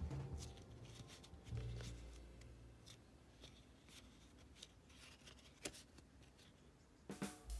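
Faint rustling and crackling of a white paper strip being handled and folded by hand, with scattered light clicks of paper creasing.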